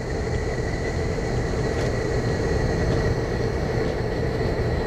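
Steady machine hum with a low rumble and a constant pitched whine. A faint tap or two of a knife on a plastic cutting board.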